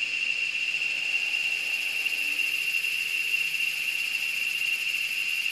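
A steady, high-pitched whine that holds one pitch and level without a break.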